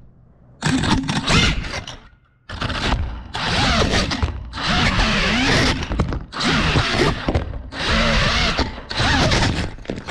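FPV quadcopter's brushless motors whining in repeated bursts, the pitch rising and falling with the throttle, cutting back briefly between bursts and dropping almost to nothing for a moment about two seconds in.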